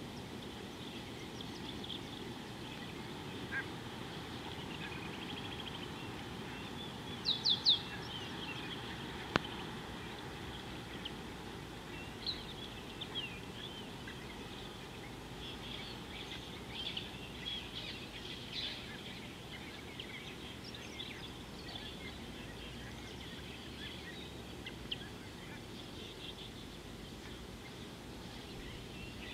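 Wild birds calling over a steady outdoor background hiss: scattered short chirps and calls throughout, with three loud, sharp calls in quick succession about seven seconds in and a single sharp click shortly after.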